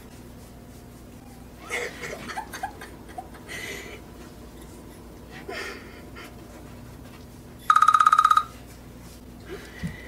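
A timer alarm goes off near the end with a rapid electronic beeping trill, loud and lasting just under a second. It signals that the one-minute countdown has run out.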